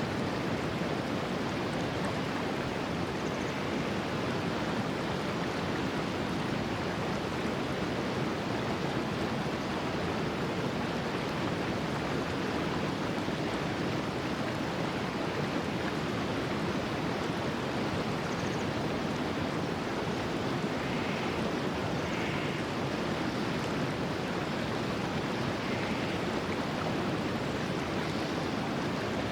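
Clear mountain stream rushing steadily, a constant even wash of flowing water. A few faint short chirps sound about two-thirds of the way in.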